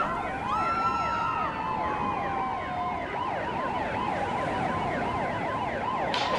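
Several emergency-vehicle sirens sounding at once, one in a slow rising-and-falling wail and another in a rapid yelp, their pitches overlapping.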